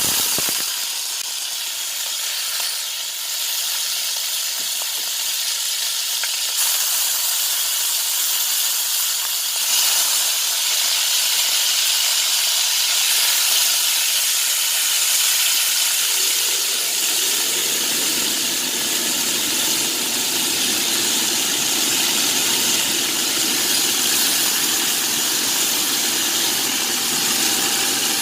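Chicken pieces frying in hot oil in a pan, sizzling loudly as the adobo sauce hits the pan. About two-thirds of the way through, a lower, rougher layer joins the steady hiss.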